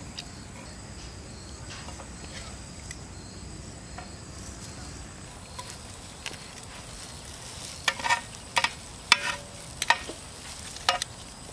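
Sandwiches frying in butter in a large aluminium pan, with a low steady sizzle. In the last few seconds, metal tongs click and scrape against the pan about eight times in quick succession.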